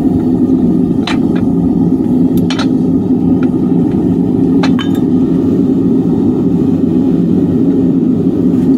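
Metal tongs and a metal ingot mould clinking against each other and a steel plate as the mould is upended to knock out a freshly cast copper ingot: several short sharp clinks in the first five seconds. Under it runs a loud, steady low rumble.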